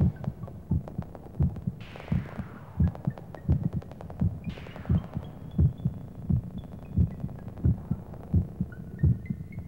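Electronic background music with a steady deep kick-drum beat. Falling swooshes sweep down every few seconds, and a few high synth notes come in near the end.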